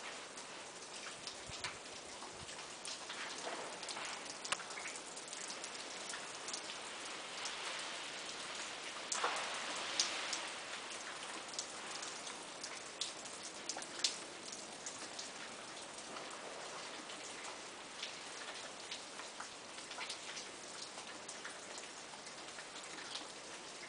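Ice-coated trees shedding water and ice: a steady patter thick with sharp ticks of drops and ice bits landing, swelling louder around ten seconds in.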